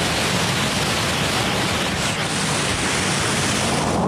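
Waterfall cascade rushing, a steady full hiss of falling water.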